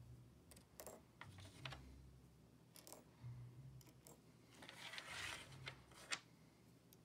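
Faint small metal clicks as steel washers are slid onto bolts and the bolts are set down one by one on a pegboard, with a brief rubbing scrape about five seconds in.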